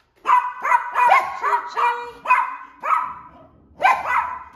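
A dog barking rapidly over and over, about ten short barks in quick succession.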